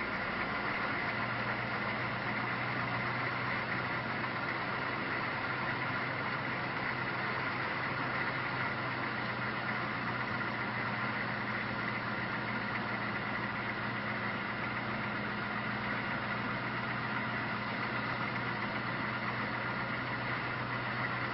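An engine running steadily at an even pitch, a constant hum that neither rises nor falls.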